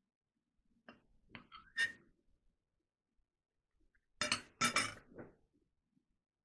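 Metal spoon clinking on a ceramic bowl: a few light taps in the first couple of seconds, then two louder, ringing clinks about half a second apart as it is set down in the bowl beside the fork, with a softer one after.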